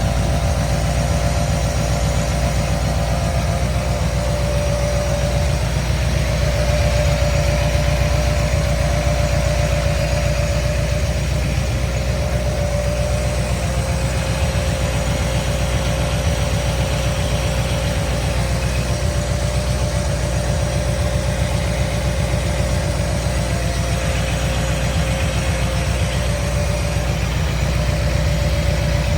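Carbureted 350 small-block V8 crate engine in a 1977 Jeep CJ-5 idling steadily, a deep rumble with a steady mid-pitched whine over it.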